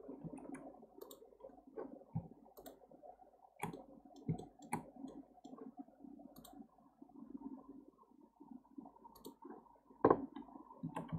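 Scattered clicks of a computer mouse and keyboard, spaced irregularly a second or so apart, over faint low background noise; one louder click near the end.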